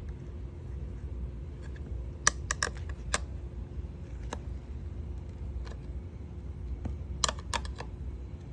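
Metal tyre spoons clicking against a dirt bike wheel rim as the tyre bead is levered on bite by bite: a few sharp clicks in two clusters, over a steady low rumble.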